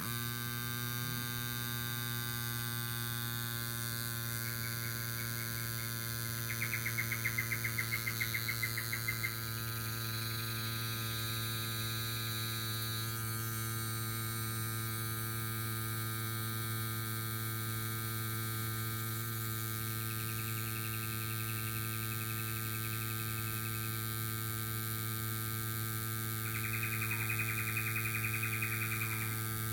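Cycplus AS2 Pro Max mini electric tyre pump switching on suddenly and running with a steady hum as it inflates a motorcycle tyre. A bird's rapid trilling call rises over it twice.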